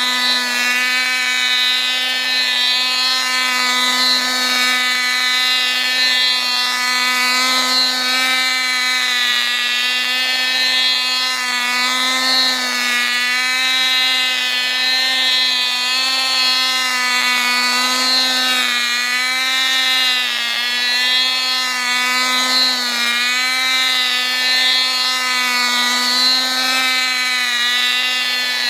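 Tiny glow-fuel two-stroke model engine of an old Cox toy race car running at full speed. It makes a steady, high-pitched buzz whose pitch wavers slightly up and down as the car drives.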